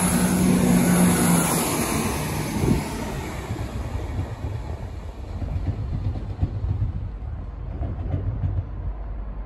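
Class 170 Turbostar diesel multiple unit passing and moving away. Its engine drone and a high whine are loud for the first second or so. Then the running sound fades steadily as the train draws off.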